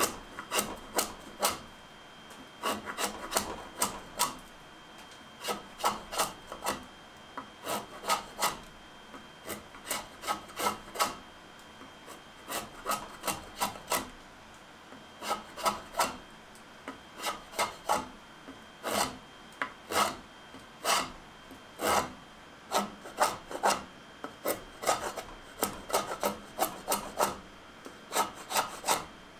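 Curved drawknife cutting across a wooden board clamped in a vise: short scraping cuts in quick runs of three to five strokes, with brief pauses between the runs and a longer one about halfway through.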